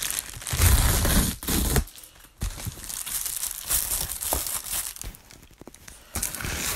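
Plastic shipping mailer bag being torn open and crinkled, loudest in the first two seconds, then scattered crinkling and rustling of the plastic.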